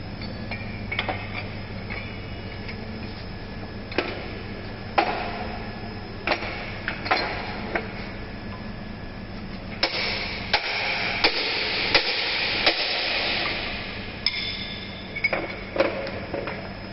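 Sharp metallic knocks and clanks at irregular intervals as tools and steel clamp fittings are handled on a frame-straightening bench, over a steady low workshop hum. In the middle there are a few seconds of rushing noise with a quick run of knocks.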